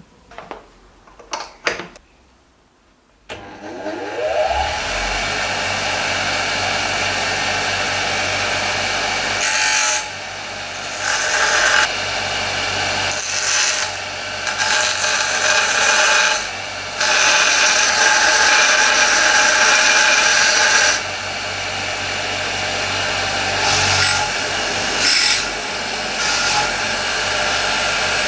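Restored bench grinder switched on, its motor whining up to speed and then running steadily. From about ten seconds in, louder harsh stretches come and go several times as the wheel grinds.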